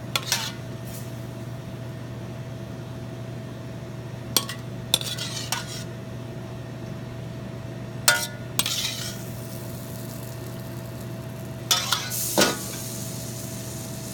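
Metal spoon clinking and scraping against a pan and a serving dish while chicken in gravy is dished up: a few scattered knocks and clinks, over a steady low hum.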